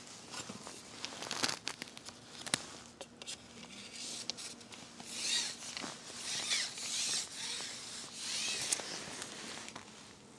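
Rustling and scraping as a long fishing pole is handled and moved, with a few sharp clicks and several swells of rustle in the second half.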